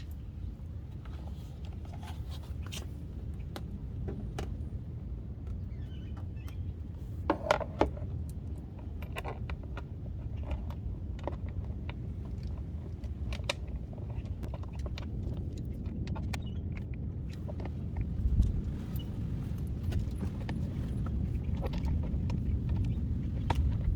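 Scattered clicks, taps and knocks of screws and a plastic fender flare being handled and fitted, with a brief louder burst about seven seconds in, over a steady low rumble.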